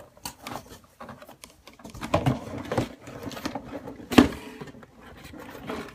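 Packaging being handled while items are taken out of a box: irregular rustling and clicking, with a sharp knock about four seconds in, the loudest sound.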